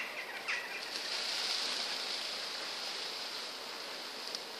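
White peacock shaking its fanned train in courtship display, the quills rattling against each other into a steady rustling hiss. The hiss swells about a second in and eases near the end.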